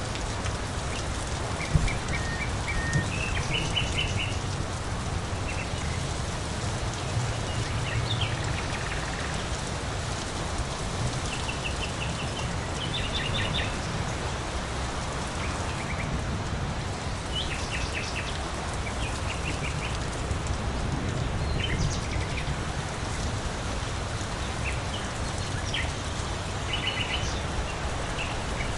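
Steady rain falling, with birds chirping on and off in short runs of quick, high chirps. There is one louder tap about two seconds in.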